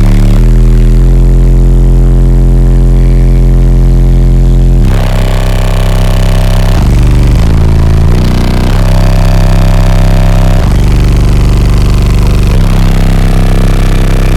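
Car audio system of sixteen 12-inch subwoofers playing very loud sustained bass notes that step to a new pitch every second or few, overloading the microphone.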